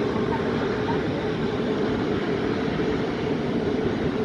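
Jet aircraft engine noise: a steady, even roar with a constant hum.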